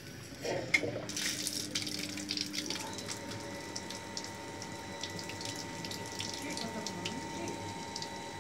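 A valve on a water filter's PVC pipework is turned with a sharp click, then water runs out of the drain pipe and splashes onto a tiled floor in a steady stream as the filter tank is drained.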